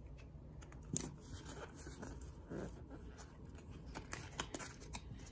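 Faint rustling and light clicks of a stack of Pokémon trading cards being handled, with one sharper tap about a second in.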